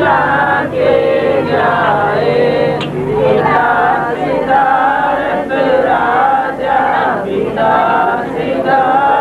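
A group of voices singing together in short, repeating melodic phrases.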